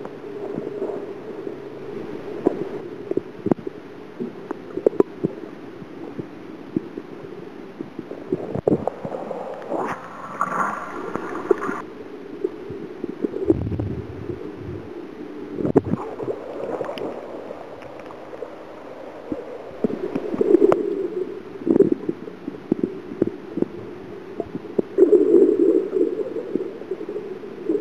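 Underwater sound picked up by a camera in its waterproof housing: muffled water movement and gurgling with frequent small clicks and knocks. A brief higher whine comes in about ten seconds in.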